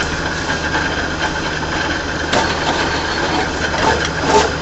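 Rebar bending machine running with a steady mechanical hum from its motor and gearbox, with a couple of short knocks.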